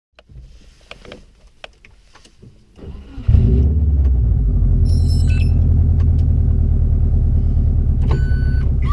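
Subaru Impreza WRX's EJ20 turbocharged flat-four, heard from inside the cabin, starts up suddenly about three seconds in. It then settles into a steady idle with the low, uneven rumble of the unequal-length boxer exhaust through a BE FREE muffler.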